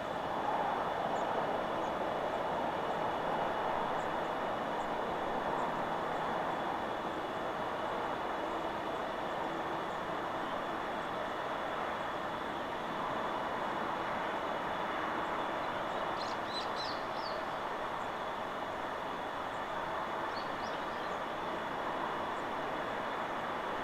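Steady rush of wind through forest trees. A bird gives a quick burst of short high chirps a little past the middle, and a few more chirps follow a few seconds later.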